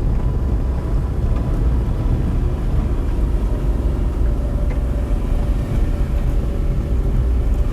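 Small 1-litre car engine labouring under load as it climbs a steep grade, a steady low rumble throughout.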